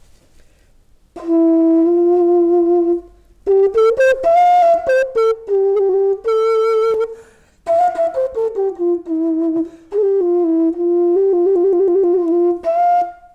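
Hollow clay brick drilled into a transverse flute, played as a breathy flute melody in three phrases, with a quick trill near the end.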